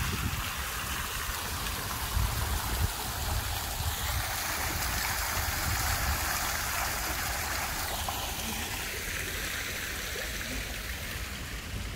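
A tiered fountain's water jets splashing and pouring into its basin: a steady rush of falling water, loudest in the middle and growing fainter from about eight seconds in.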